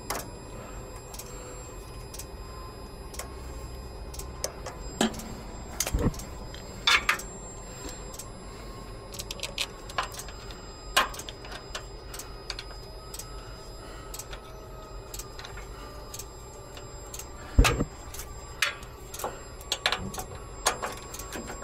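Scattered clicks and sharp knocks from hands working with small parts, over a steady low hum. The louder knocks come about 5, 7, 11 and 17 to 18 seconds in.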